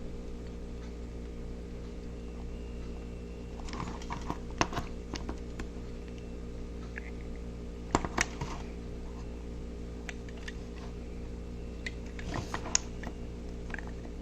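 Scattered light clicks and taps of a small plastic model being handled, in clusters about four, eight and twelve seconds in, over a steady low electrical hum.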